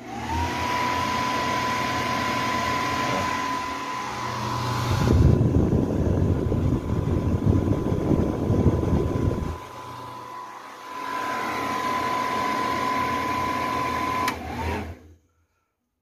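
Clothes dryer's cross-flow blower fan, freshly oiled after being seized, switched on. It spins up within a moment to a steady high whine over a rush of air, and the rush grows louder and rougher for about five seconds in the middle. Near the end it is switched off and the whine falls away. The fan now turns freely: its only fault was a shaft stuck from age, which a drop of oil has cured.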